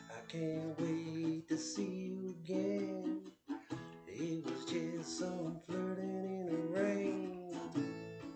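Guitar strumming chords, the instrumental ending of a self-written acoustic song.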